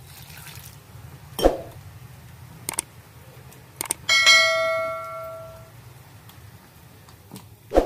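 A bell chime sound effect from a subscribe-button animation rings out about four seconds in and fades over about a second and a half, after a few short clicks. Around it there are two knocks and faint sounds of a hand mixing spice paste with water in a steel bowl.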